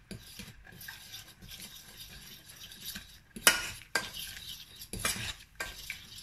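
A utensil stirring a butter-flour roux and milk in a stainless steel saucepan, scraping steadily, with a few sharp clinks against the pot, the loudest a little past halfway.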